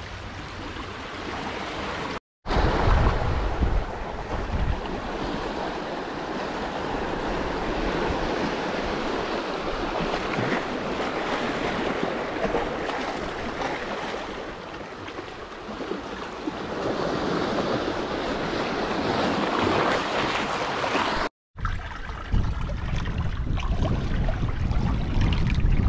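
Sea water washing and surging over shoreline rocks, with wind buffeting the microphone; the sound cuts out briefly twice.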